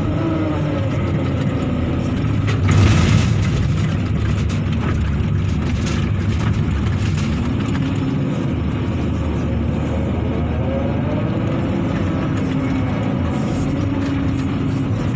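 Excavator's diesel engine and hydraulics heard from inside the cab while digging and loading, the engine note rising and falling repeatedly as the arm, bucket and swing work. About three seconds in there is a brief louder rush of noise.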